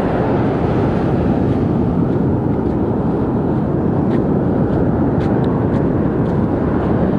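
Steady, loud rumble of sea wind buffeting the microphone, mixed with breaking surf, with a few faint ticks in the middle.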